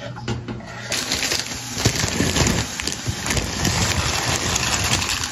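A few light knocks and scrapes, then from about a second in, food sizzling and crackling in hot oil in a frying pan.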